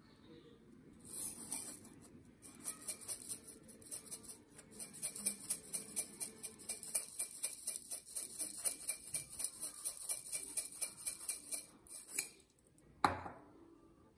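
Light rhythmic clinking of tableware, about three strokes a second for some ten seconds, then a single louder knock near the end.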